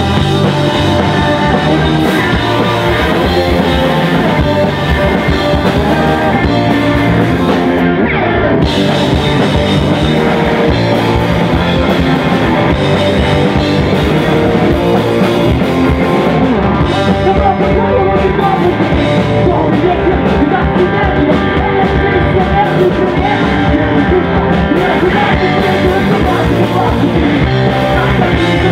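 Live punk rock band playing loud and fast: electric guitars and a drum kit, with a singer singing into a microphone.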